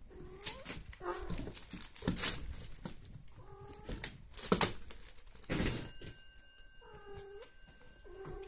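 Kittens at play: about five short cat calls, each dipping and rising in pitch, mixed with sharp clicks, knocks and scuffling as they tussle.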